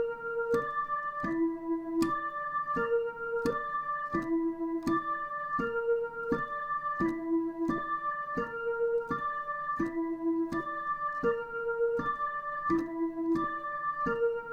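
Dutch ambulance siren sounding as a looping broken chord of keyboard-like electronic tones, about three sharply struck notes a second. The lowest note swaps between two pitches about every one and a half seconds.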